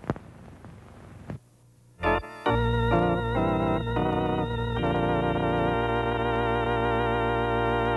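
Faint hiss, then about two seconds in organ music starts: a few short chords, then one long held chord with a slight vibrato.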